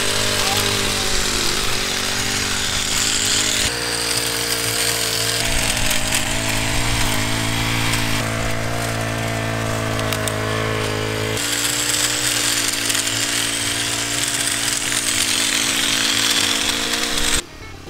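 Petrol pole hedge trimmer engine running steadily, its tone jumping suddenly a few times and cutting off near the end.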